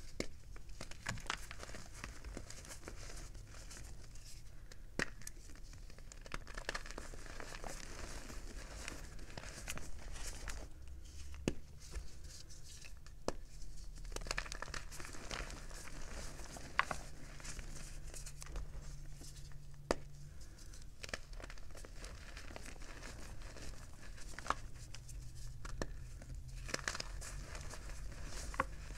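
Gym chalk crushed and squeezed by hand: dry, crunchy crumbling of chalk blocks and powder, with many scattered sharp snaps as pieces break apart.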